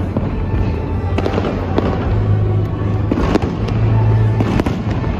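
Aerial fireworks shells bursting overhead in a rapid, irregular string of sharp bangs and crackles, over loud show music with a steady bass.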